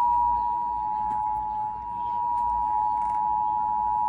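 Emergency Alert System attention signal: a steady, loud two-tone alert at 853 and 960 Hz, announcing an emergency alert, here a severe thunderstorm warning.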